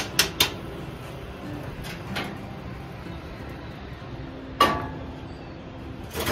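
Metal cookware and utensils clattering: two quick clinks at the start, a faint knock about two seconds in, then the loudest knock, which rings briefly, and another knock at the end.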